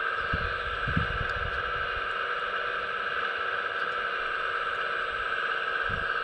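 Steady electric whine of the hydraulic pump in a 1:15 scale RC Hitachi ZX135US excavator as the bucket digs, with a few low thumps in the first second and another near the end.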